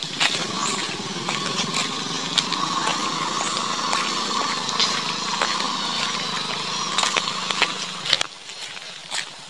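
Small motorcycle engine running steadily along a dirt trail, with scattered sharp crackling clicks. The engine sound drops away about eight seconds in.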